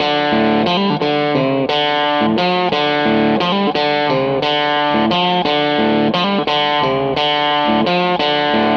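Background music: an electric guitar playing a line of plucked notes with effects.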